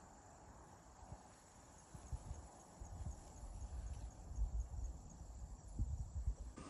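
Faint insects chirping: a thin, high, steady trill with a run of evenly spaced high chirps, under light wind rumbling on the microphone that gusts in from about two seconds in.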